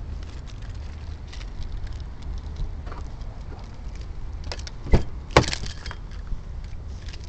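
Scattered clicks and knocks over a steady low rumble, with two loud knocks about five seconds in, half a second apart.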